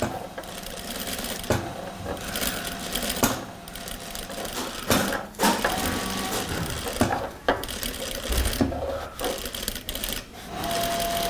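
Juki industrial sewing machine stitching slowly around a curve in fabric. It runs in short stretches with several brief pauses and a few sharp clicks.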